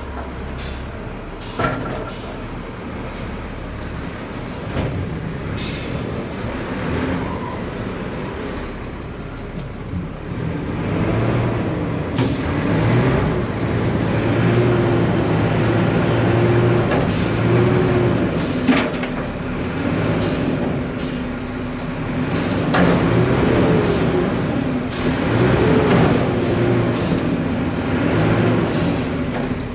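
Engine of a Mack front-loader garbage truck heard from inside the cab, revving up and down repeatedly while the hydraulics work the lift. Short sharp clanks and hisses are scattered through it.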